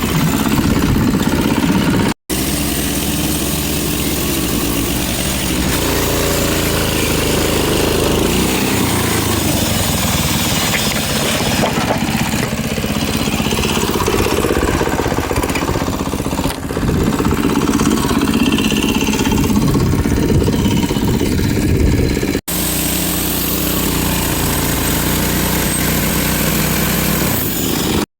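Sawmill engine running steadily, its note shifting now and then as it works. The sound cuts out briefly twice.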